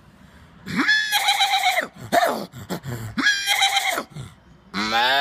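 A man imitating a horse whinnying with his voice, twice, each call about a second long, with a few short clicks in between. Near the end he starts a long, steady, low call like a cow's moo.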